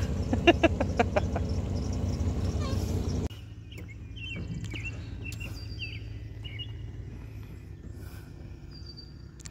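Outboard motor on a small fishing boat running steadily with a low, pulsing hum. About three seconds in it cuts off abruptly, and birds chirp over a faint low hum.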